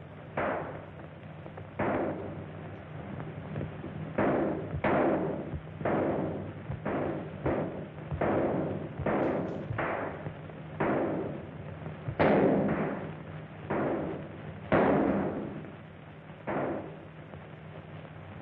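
Gunfire in a shootout: about twenty sharp shots at irregular intervals, each ringing out briefly, over a steady hum from an early sound-film soundtrack.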